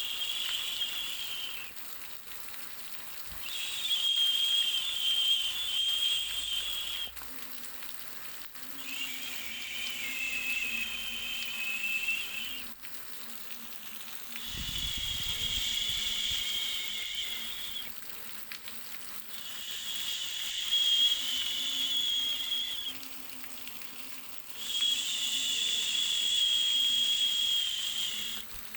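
Baby sleep-noise track: a high hiss with a thin whistling edge that swells for about three seconds, then drops back, repeating about every five seconds.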